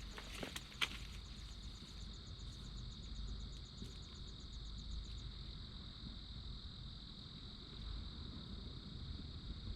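Insects trilling steadily, with a second, faster pulsed chirping higher up that stops about five seconds in, over a low outdoor rumble. Two small clicks in the first second.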